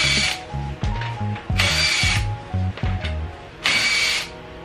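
Cordless impact wrench on a car wheel's lug bolts, run in three short bursts about two seconds apart. Background music with a steady beat plays underneath.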